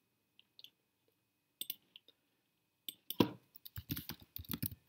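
Computer keyboard and mouse clicking: a few separate clicks in the first two seconds, then a quick run of keystrokes from about three seconds in.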